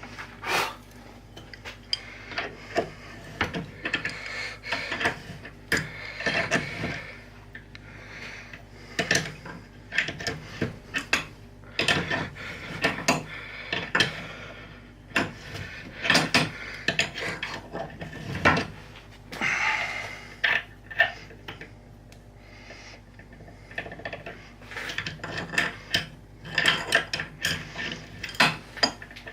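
Threads being cut by hand in an aluminium petcock adapter: irregular metal clicks, creaks and short scraping stretches as the tap is worked into the hole.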